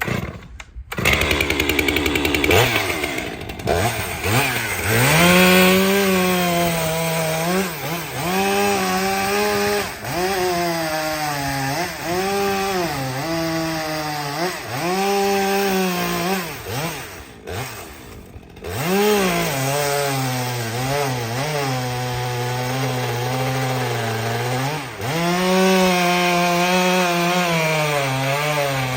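Chainsaw cutting through a wooden log cant: the engine revs high, its pitch sagging under load and climbing back again and again. It drops off briefly about two-thirds of the way through, then runs on through the cut and revs up again near the end.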